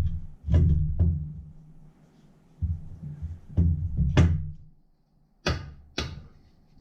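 Holley Hi-Ram intake manifold being worked down onto a small-block Ford's cylinder heads: dull thunks with rumbling scrapes as it is shifted and caught on the head lip, then two sharp metal clanks about half a second apart near the end.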